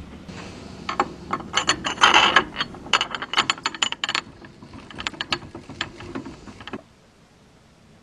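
Quick mechanical clicks and rattles of hard equipment being handled at a shooting bench, densest in the first half, stopping about a second before the end.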